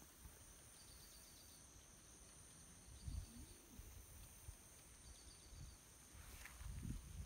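Faint insect chorus: a steady high-pitched drone with short trains of chirps repeating about every two seconds. A few soft thumps break in, the loudest about three seconds in and more near the end.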